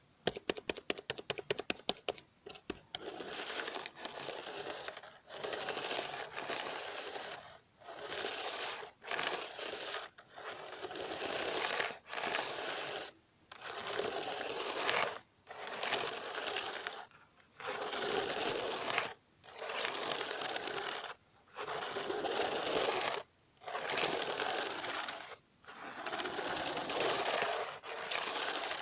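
Rapid clicking on a computer keyboard, then a run of about a dozen bursts of fast scratching, each a second or so long with short pauses between.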